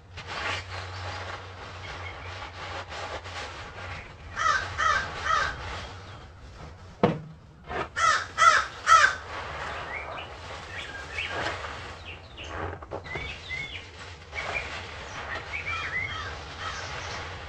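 Wild birds calling loudly: two runs of three harsh repeated calls, the second run, about eight seconds in, the loudest, with smaller chirps from other birds in the later part. A sharp click sounds about seven seconds in.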